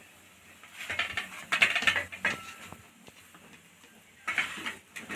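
A metal spoon spreading and pressing sticky grated-carrot barfi mixture flat in a tray, scraping and patting in short bursts, a longer stretch about a second in and a brief one near the end.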